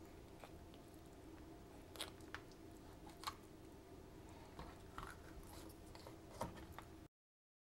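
Faint crunches and ticks of a fillet knife cutting through a trout on a plastic cutting board, a few at a time over a low steady hum. The sound cuts off abruptly near the end.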